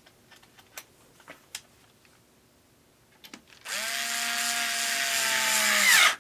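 Cordless electric screwdriver driving in a woofer mounting screw. It starts nearly four seconds in, runs steadily for about two and a half seconds, and its pitch sags just before it stops. A few faint handling clicks come before it.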